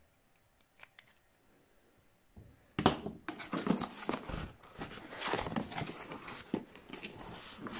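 Cardboard box packaging being handled and torn open. A few faint clicks, then from about three seconds in, continuous rustling, crackling and tearing of cardboard and wrapping.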